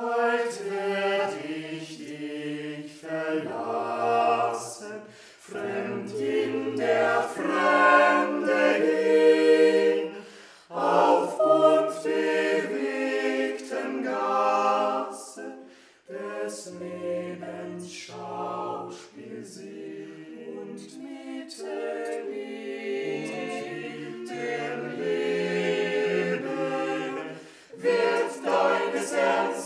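A small mixed group of eight young voices sings a cappella in parts. The singing starts out of silence and goes in phrases, with short breaks about ten, sixteen and twenty-eight seconds in.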